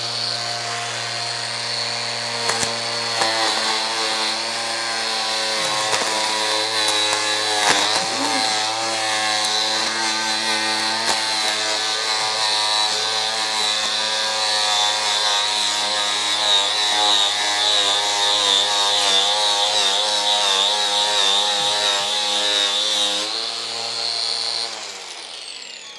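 Cordless angle grinder running with a homemade disc of compressed toilet paper, grinding a soft paste; the motor's whine wavers in pitch as the disc is pressed into the work. Near the end the grinder is switched off and spins down with a falling whine.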